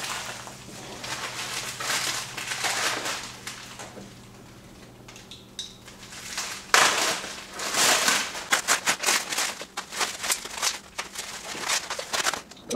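Plastic bubble wrap rustling and crinkling as it is handled and pulled off a rifle by hand, turning to loud, dense crackling about halfway through.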